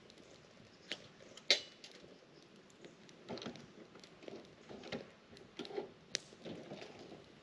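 Wood campfire crackling in a small folding steel fire pit: scattered sharp pops and snaps, the loudest about one and a half seconds in and another about six seconds in, over a soft rush of flames.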